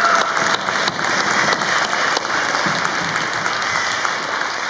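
Audience applauding, a dense patter of hand claps that slowly tapers off.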